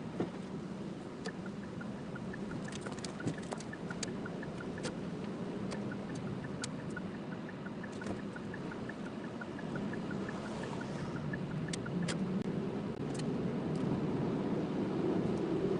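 Road and engine noise inside a moving car's cabin, growing slowly louder toward the end. A light, regular ticking about three times a second runs through the first half or so, with scattered sharp clicks.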